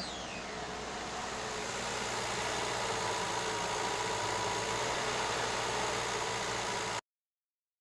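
Diesel engine of heavy machinery running steadily, growing a little louder after about two seconds, then cutting off suddenly near the end.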